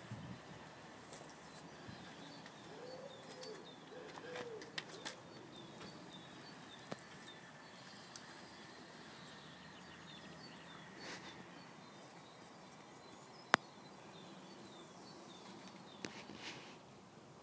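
Faint outdoor ambience with small birds chirping over and over, a few light clicks, and one sharp click about three-quarters of the way through.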